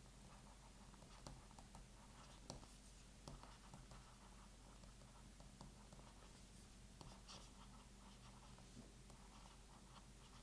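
Faint scratching of a stylus nib writing on the Boox Tab X e-ink screen, in short strokes with a few light taps.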